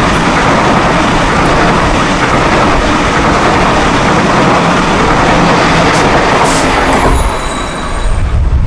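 Sydney Trains double-deck electric passenger train running past at speed close by: a loud, steady rush of wheels on rail and car bodies. About seven seconds in, the sound changes to a lower rumble with a few faint high squealing tones as another train approaches.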